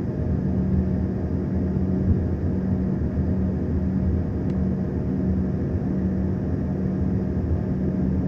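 Airliner cabin noise: the engines make a steady low drone with a constant hum running through it.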